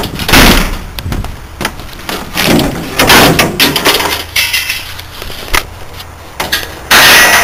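Irregular knocks, clicks and bursts of scraping, rustling noise against a bare steel electrical cabinet. The loudest bursts come just after the start, around the middle, and near the end.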